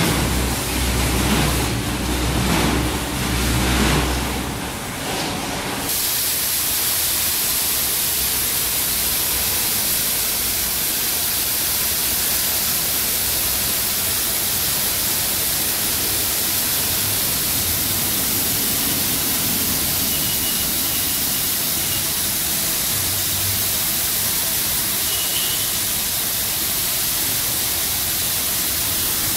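Automatic car wash machine working on a car. For about six seconds there is a low hum with uneven, changing noise, then it switches suddenly to a steady, even hiss of water spray.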